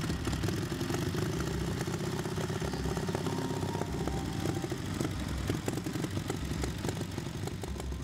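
A motorcycle engine running steadily at low speed, its firing heard as rapid, uneven pops.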